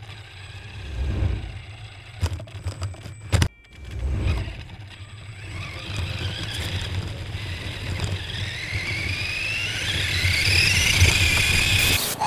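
Radio-controlled car driving with the camera riding on it: low rumble and a few sharp knocks from the wheels over the ground, then a motor whine that climbs steadily in pitch over the last few seconds as it speeds up.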